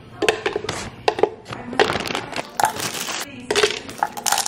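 Frozen fruit pieces dropped by hand into a plastic Ninja blender cup, landing in an uneven series of hard knocks and clatters, with the rustle of the plastic freezer bag they come from.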